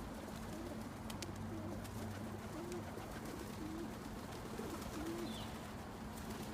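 Feral pigeons cooing over and over, soft low coos following one another every half second or so.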